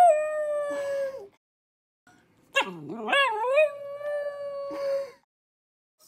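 Shiba Inu puppy howling: one howl trails off about a second in, then after a short pause a second howl wavers up and down before holding one steady note for over a second.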